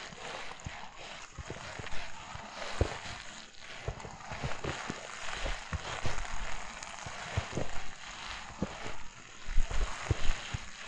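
Footsteps crunching through fresh snow while walking, a string of short, irregular crunches over a steady hiss of outdoor air.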